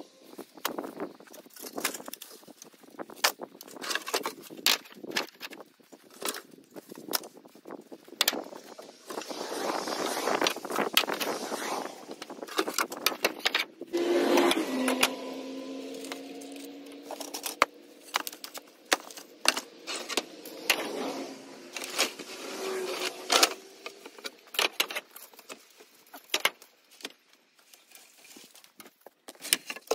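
Demolition debris being pulled apart and thrown down: wooden boards, broken corrugated asbestos-cement roof sheets and bricks clattering and knocking, with sharp knocks throughout and rustling, scraping stretches. About halfway through there is a drawn-out squeak, like a board or sheet dragged against something.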